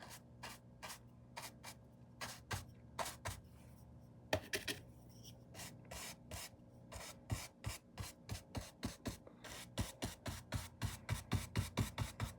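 Paintbrush scrubbing paint onto the painting surface in short rubbing strokes. The strokes are scattered at first, then settle into a steady run of about three a second in the second half.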